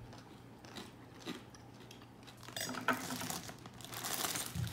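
Faint clinks and taps of plates and cutlery, then about two and a half seconds in a louder noisy background with sharper clicks.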